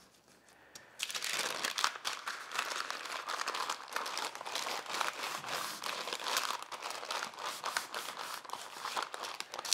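Parchment paper crinkling and rustling as dough is rolled up inside it. It starts about a second in and goes on as a dense crackle of small clicks.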